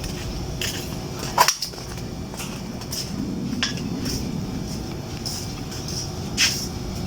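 Several short, sharp clinks and knocks, the loudest about a second and a half in, over a steady low background rumble.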